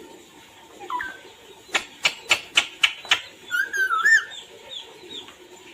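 Pet parrot vocalising: a short rising whistle, then a run of six sharp clicking chirps at about three a second, followed by a brief warbling whistle.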